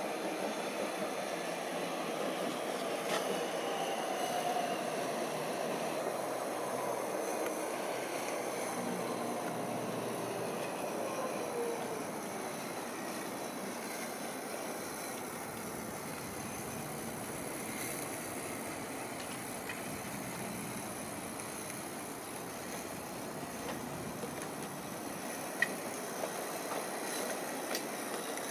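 Small meths-fired live-steam tram with a single oscillating cylinder running slowly on garden-railway track: a steady hiss with faint rail noise. A distant aircraft drone, falling slowly in pitch, passes over during the first dozen seconds.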